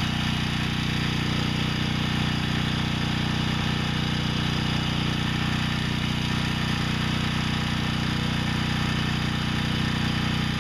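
Troy-Bilt portable generator's small engine running steadily under no load.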